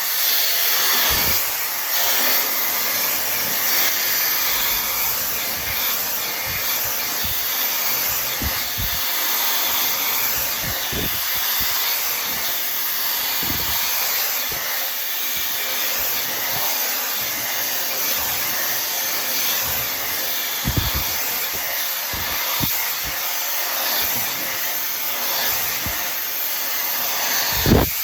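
Tymo Air Hype blow dryer running steadily, a constant rush of blown air, with a few brief low thumps scattered through it.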